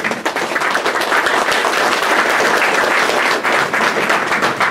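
Audience applauding, breaking out at once and holding steady.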